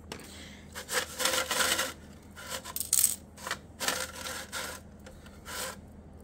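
Small pieces of scrap art glass clinking and scraping against each other as they are shifted and pressed into place by hand, in several short bursts.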